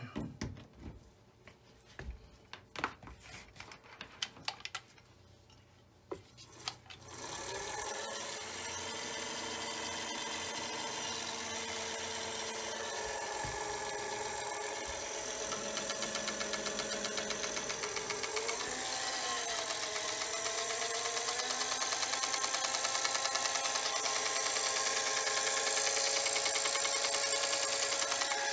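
A few handling clicks and knocks, then a Singer Featherweight 221 sewing machine starts running with a steady electric-motor hum and mechanism rattle. Its pitch wavers, and it gets louder about two-thirds of the way in as it speeds up.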